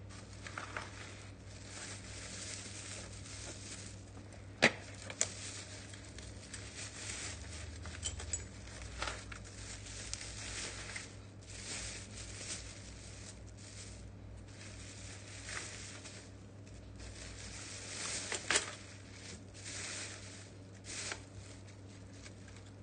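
Plastic packaging and paper manuals being handled, crinkling and rustling on and off. Two sharp clicks stand out, one about five seconds in and one about four seconds before the end.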